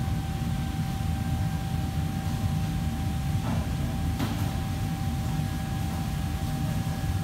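Steady low rumble of running kitchen machinery with a constant high whine over it. Two faint knocks come about three and a half and four seconds in.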